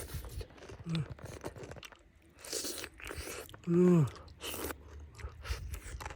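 Irregular crunching and scraping of oyster shells, with a short vocal exclamation about a second in and a louder one about four seconds in.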